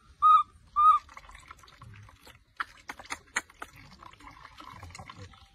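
Baby monkey giving two short, high-pitched calls near the start, followed by water splashing and dripping with a few sharp clicks.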